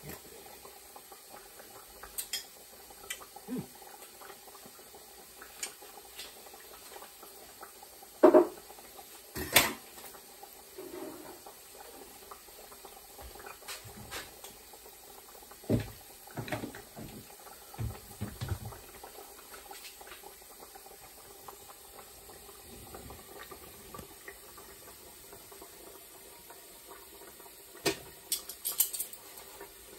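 Kitchen utensil and dish sounds: a spoon clinking in a ceramic bowl, then scattered knocks and clicks as bottles and jars are handled. The loudest two knocks come about eight and nine and a half seconds in, over a faint steady hum.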